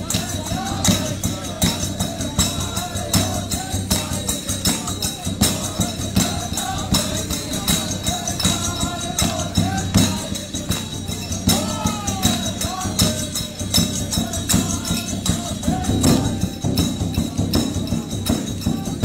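Music: a voice singing over fast, steady percussion, about three or four strokes a second.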